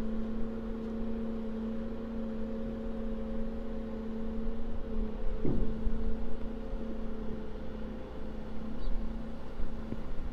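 An engine running steadily, a hum with a low rumble underneath and a brief dip in pitch a little past halfway.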